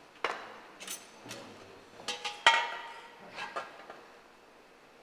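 Kitchen utensils clinking and knocking against metal bowls and pans: about six separate strikes. The loudest, about two and a half seconds in, rings briefly.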